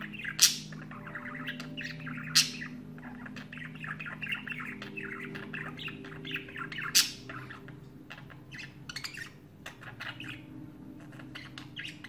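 Budgerigars warbling and chattering without pause: a male's song to the females. Three loud, sharp squawks stand out, about half a second, two and a half seconds and seven seconds in.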